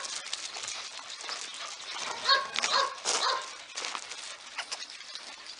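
Dogs barking, with a cluster of short high-pitched calls about two to three seconds in.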